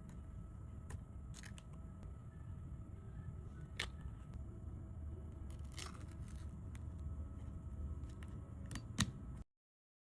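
A few faint, scattered clicks and taps of small-scale handling work over a low steady hum; the sound cuts out completely about nine and a half seconds in.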